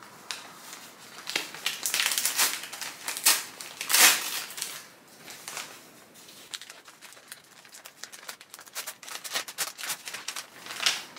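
Packing paper around a potted plant crinkling and rustling as it is unwrapped by hand, in irregular bursts, loudest about four seconds in.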